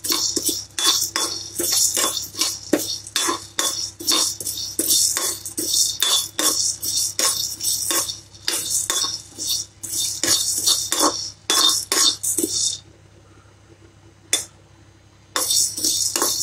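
A metal ladle scrapes and knocks quickly around a kadai as it stirs toor dal, peppercorns and fenugreek seeds being dry-roasted, the seeds rattling against the pan. The stirring pauses for about two seconds near the end, with a single knock in the gap, then starts again.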